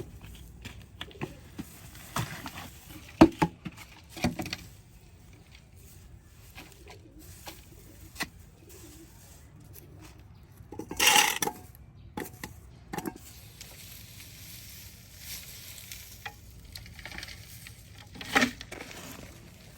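Soil being dug through and crumbled while potatoes are pulled out: scattered soft knocks and gritty rustling, with a louder scraping rustle about halfway through and another near the end.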